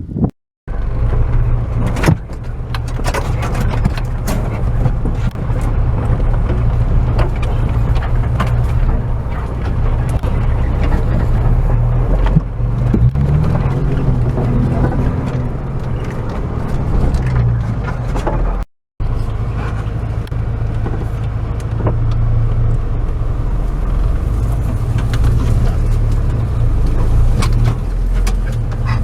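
Opel Frontera A Sport's engine running at low revs while driving off-road, with scattered knocks and rattles as it goes over rough ground. The revs rise briefly about halfway through. The sound cuts out completely twice, once right at the start and once about two-thirds of the way in.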